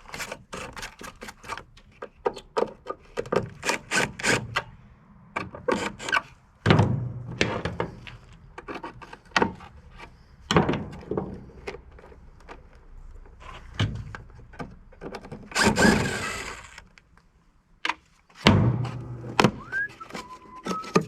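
Irregular metal knocks, clanks and scraping as hand tools work a radiator loose from a piece of scrap, with several heavier thunks and a short squeal of metal near the end.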